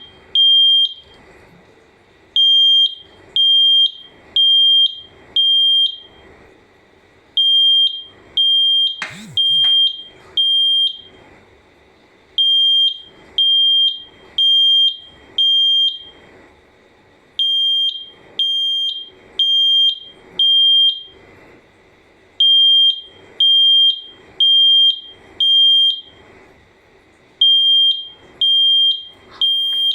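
Combined smoke and carbon monoxide alarm sounding after being triggered with a smoke tester spray. It gives loud, high-pitched beeps in groups of four, each group repeating about every five seconds.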